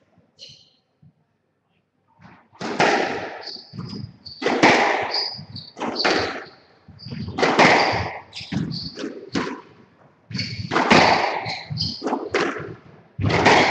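Squash rally starting about two and a half seconds in: the ball cracks off rackets and court walls about once a second, each hit ringing in the court, with short high squeaks of shoes on the floor between hits.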